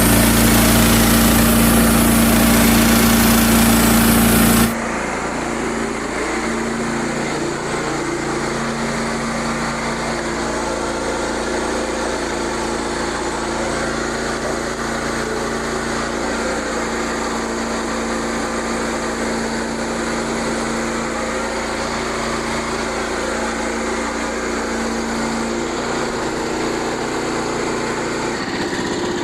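Small engine running steadily at an even pitch. It is much louder and fuller for the first five seconds or so, then drops suddenly to a quieter, steady run.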